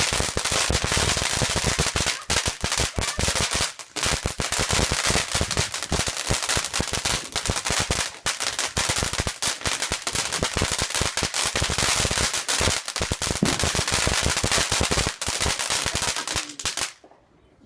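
A firework going off in a rapid, unbroken string of sharp crackling bangs for about seventeen seconds, which stop abruptly just before the end.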